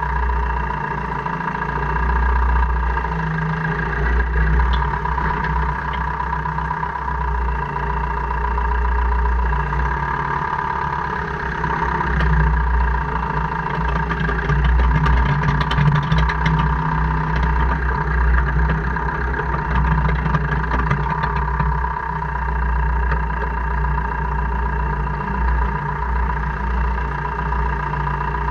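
2002 Jeep Cherokee KJ (Liberty) running, with a low rumble and a steady high whine, and rapid fine clicking around the middle. This is the owner's gear-grinding/clicking noise, which comes only in 4H or 4L and never in 2H; its cause is unknown to him.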